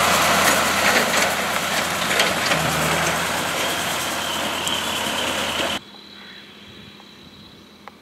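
Deutz-Fahr tractor and McHale F5500 round baler running close by, loud and noisy with a lot of hiss over a low engine hum. About six seconds in the sound drops suddenly to a much quieter, distant, steady engine hum with a faint high whine.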